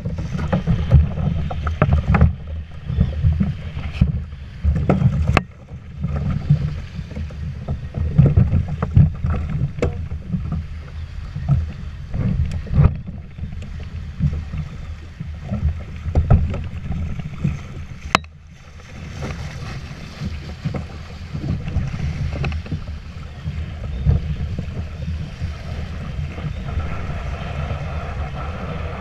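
Gusty wind rumbling over a camera microphone on a kayak, with choppy water splashing and knocking against the kayak's hull in shallow surf.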